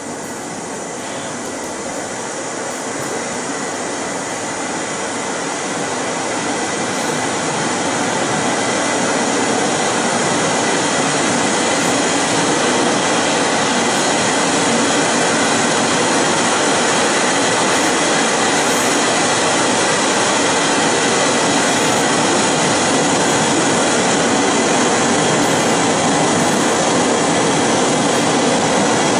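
A loud, steady wash of rumbling noise from the dance's soundtrack over loudspeakers, swelling over the first ten seconds or so and then holding at one level.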